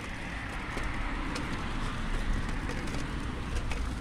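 Street traffic: a vehicle passing on a wet road, its noise swelling and then fading, over a low steady rumble.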